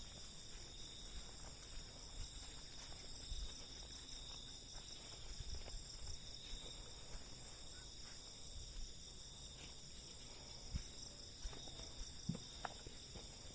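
Steady high-pitched chorus of night insects such as crickets, with a few soft knocks.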